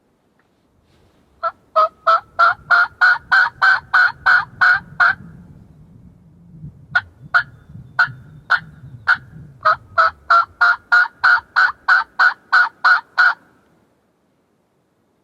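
Woodhaven turkey call sounding a series of hen yelps, loud and evenly spaced at about three a second. A run of about a dozen yelps is followed by a few scattered notes, then a second run of about a dozen.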